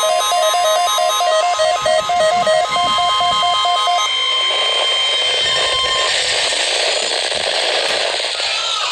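NOAA Weather Radio's steady 1050 Hz warning alarm tone sounding as part of the required weekly test, heard through radio hiss. For the first four seconds an electronic alarm beeps over it in a fast two-note warble. The tone then runs alone for about two seconds more and stops, leaving radio static.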